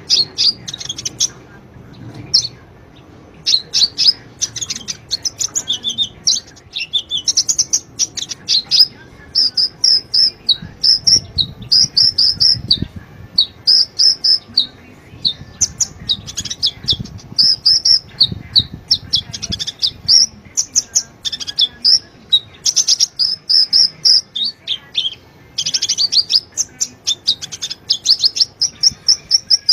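Sunbird (kolibri ninja) singing in rapid bursts of high, sharp chirps and short trills, phrase after phrase with brief pauses, in the energetic 'gacor' style used as a masteran for training songbirds.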